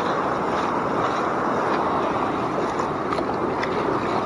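Steady noise of breaking surf and shallow wash swirling around the legs, mixed with wind on the microphone, sounding dull and muffled, with a few faint splashy ticks.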